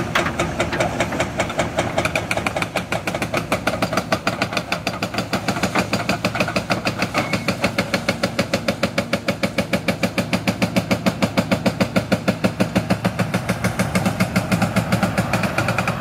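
Hydraulic demolition breaker hammering steadily in rapid, even blows, several a second, over a diesel excavator engine's steady running.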